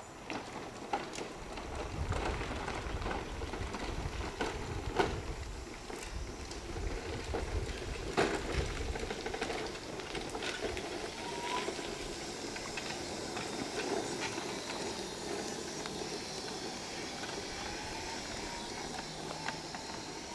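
A Permobil F3 power wheelchair rolling down a dirt-and-gravel trail and onto pavement, its tyres crunching and its electric drive giving a faint whine once it passes close, about halfway through. Scattered sharp knocks and a low rumble are heard in the first half.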